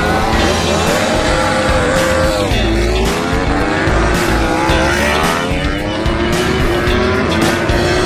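Several MotoGP racing motorcycles' four-cylinder engines revving hard as the bikes pull away from a standstill. Each engine note climbs and then drops at a gear change, and the engines overlap one another.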